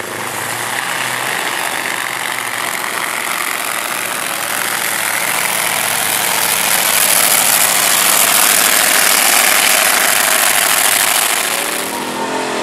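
Engine of a small custom tracked vehicle running close by, a loud, noisy sound that swells about seven seconds in and eases near the end.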